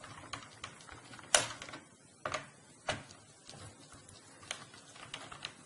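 Scattered small clicks and taps of a Phillips screwdriver and a laptop's plastic RAM compartment cover being worked loose, irregular, with the sharpest click about a second and a half in.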